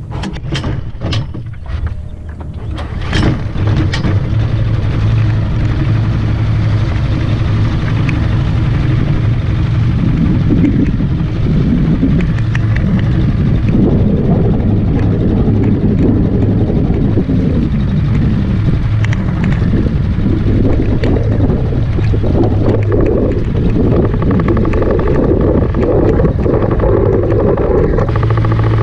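Predator 212cc single-cylinder four-stroke engine on a Mudskipper longtail mud motor running, driving a canoe. A few sharp knocks in the first three seconds, then the engine gets louder about four seconds in and runs steadily.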